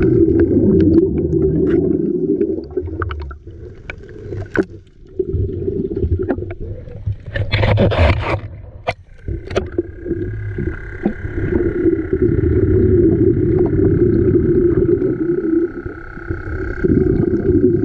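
Muffled underwater rumble of diving with a hookah air supply, with a steady high whine that drops out for several seconds and returns, scattered clicks, and a short rush of noise about eight seconds in.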